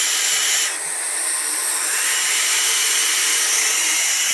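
Barn owls hissing: a harsh, continuous hiss of overlapping breaths, with a short dip about a second in. It is their reaction to an intruder at the nest, and it stops once she leaves.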